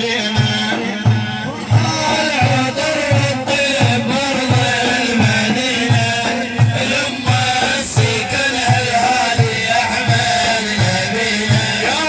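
Middle Eastern instrumental music: a steady low drum beat, about two hits a second, under a wavering melody line.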